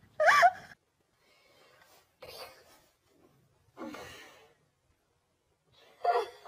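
A short, high-pitched cry that bends in pitch just after the start. Faint breathy sounds follow about two and four seconds in, and more high-pitched cries come near the end.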